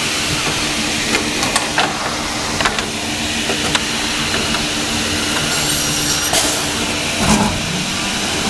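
Comec FIS2 wood milling machine running, with a steady hum and machine noise and scattered sharp clicks. A short burst of hiss comes about six seconds in, and a knock follows about a second later.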